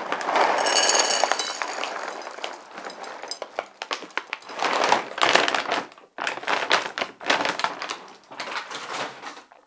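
Dry cat food kibble pouring from the bag onto a plate, a dense rattle of pellets landing over the first couple of seconds that thins out. After that the paper bag rustles and crinkles in short bursts as it is handled.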